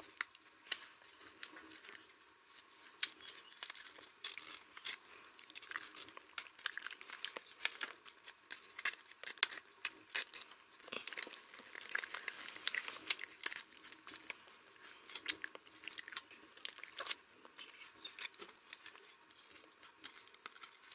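A sheet of paper rustling and crinkling as hands handle and fold it around matchsticks, with many small irregular crackles and clicks.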